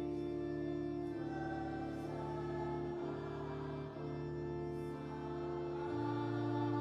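Digital keyboard on an organ voice playing slow, held chords that change roughly once a second, the bass note moving up near the end.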